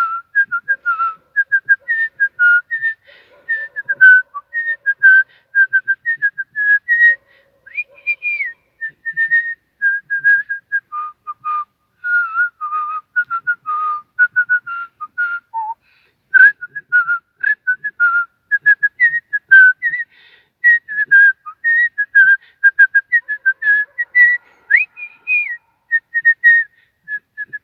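A man whistling a lively tune with his lips, a fast run of short, separate notes with a couple of quick upward slides to higher notes.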